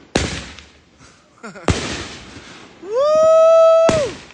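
Aerial fireworks going off: three sharp bangs, the first two fading out over a second or so and the last near the end. Just before the last bang, a long call rises to a steady pitch and holds for about a second.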